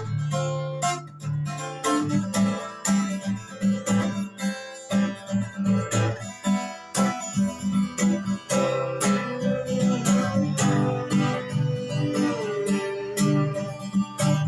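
Instrumental break in a song: acoustic guitar playing a steady rhythmic pattern over a regular beat, with a wavering held melody line coming in a little past halfway.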